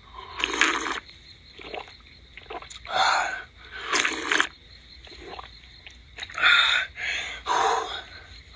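A man slurping and gulping water straight from a muddy pool with his mouth, with gasping breaths, in a run of short bursts about a second apart.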